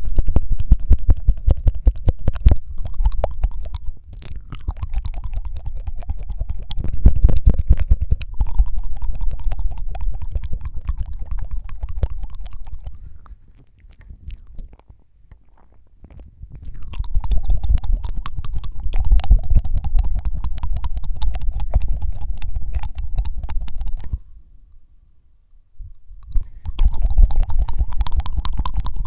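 Close-miked ASMR mouth sounds: fast tongue fluttering, a dense buzzy rattle of wet clicks. It comes in three long runs, with short pauses about 14 and 25 seconds in.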